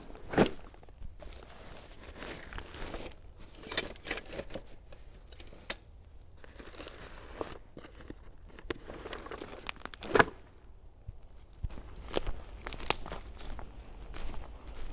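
Rustling and knocking of a nylon backpack with a strapped-on foam sleeping mat being set down and handled, with scattered sharp clicks and one loud knock about two-thirds through. Near the end, footsteps crunch through dry grass and pine litter.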